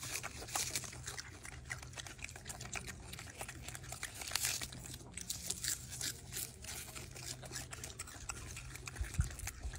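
Golden snub-nosed monkeys chewing and tearing crisp lettuce leaves: a steady run of small crunches and crackles. One low thump near the end.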